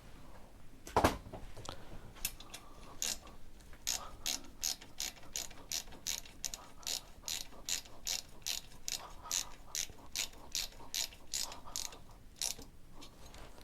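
A ratchet wrench clicking steadily as it is worked back and forth, at about two to three clicks a second, tightening down the rocker cover fasteners to about 9 Nm. A single sharp knock comes about a second in.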